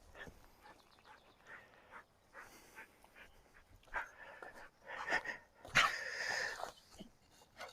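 A dog's faint, high-pitched sounds in short, irregular bursts, starting about four seconds in, the loudest a little before the end.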